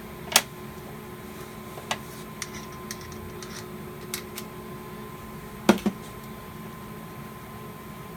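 Scattered clicks and knocks of hands and tools working on a fire alarm panel, about eight in all, the loudest one just after the start and a quick double knock about two-thirds through, over a faint steady hum.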